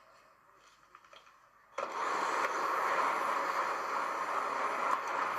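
Quiet room tone, then about two seconds in a loud, steady rushing noise starts abruptly and runs on evenly.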